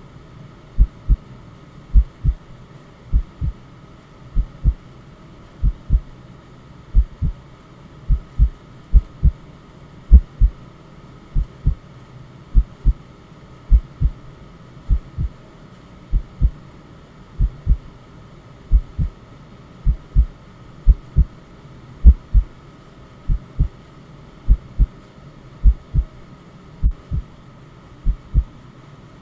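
Heartbeat sound, a slow steady lub-dub: pairs of low thumps about once a second, over a faint steady hiss of white noise.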